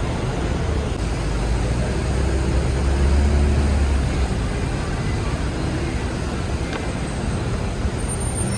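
Steady low rumble and noise of a running vehicle, a little stronger about two to four seconds in.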